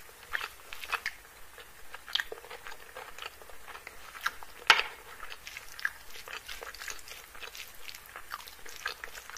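Close-miked chewing and crunching of food: a string of short, crisp mouth clicks and crunches at an uneven pace, with one sharper crunch just under five seconds in.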